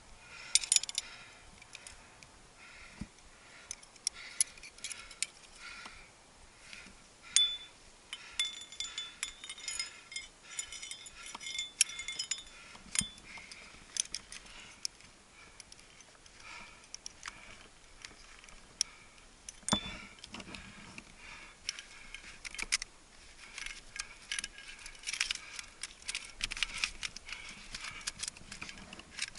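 Metal climbing gear (carabiners and cams) clinking and jangling in irregular bursts of sharp clicks and short high rings as the climber moves up the crack and cleans the protection.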